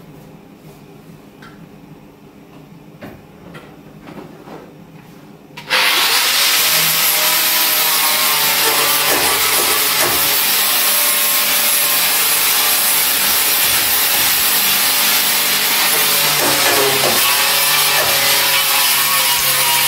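Angle grinder with an abrasive disc grinding the steel body shell. It starts suddenly about six seconds in, after a few light knocks, and runs steadily from then on, its whine dipping in pitch now and then as the disc bites into the metal.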